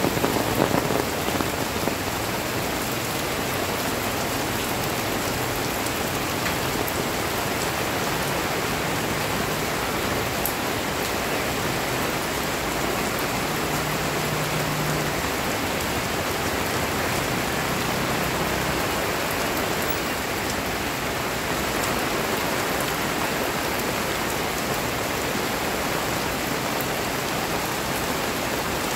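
Heavy rain pouring steadily onto a wet paved street.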